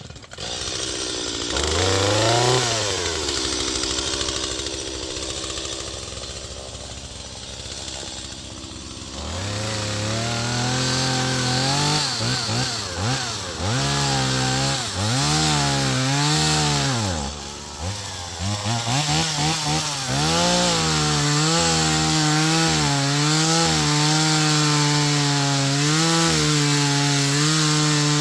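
Two-stroke chainsaw: one quick rev about two seconds in, then running quieter for several seconds, then throttled up and down again and again before holding a steady high pitch while it cuts into a log.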